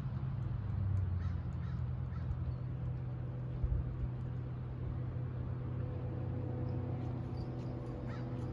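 A steady low engine hum, with a few faint bird calls.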